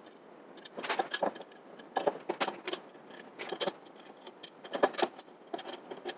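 Irregular light clicks and clinks of metal parts being handled while a CNC 3018 mini milling machine's metal frame is assembled by hand, a few sharp knocks every second or so.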